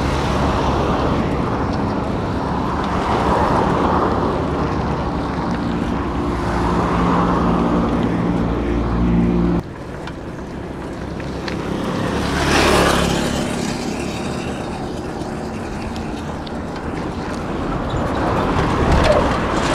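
Street traffic. A motor vehicle's engine hums steadily and then cuts off suddenly about ten seconds in. A few seconds later another vehicle passes by, rising and then fading.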